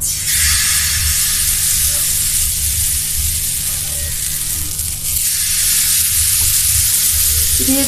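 Thin flour batter sizzling as it hits a hot, oiled cast-iron tawa. The sizzle starts suddenly with the pour and carries on as a loud, steady hiss, easing a little about five seconds in and then picking up again.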